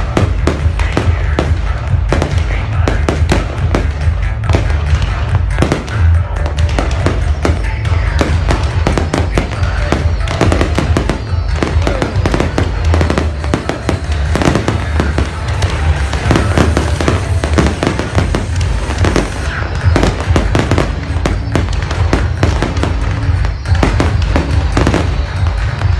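Fireworks display: a dense, unbroken stream of bangs and crackles over a constant low rumble.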